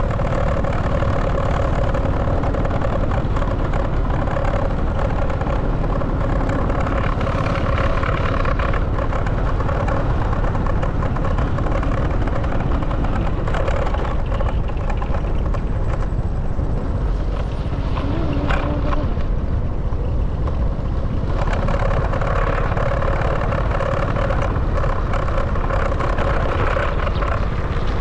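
Motorbike engine running at steady riding speed, its note easing off for a few seconds around the middle and then picking up again, under heavy wind rumble on the microphone.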